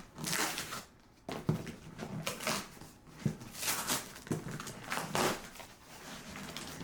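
Cardboard box being roughly torn open and handled by hand: irregular tearing and scraping noises with a few dull knocks.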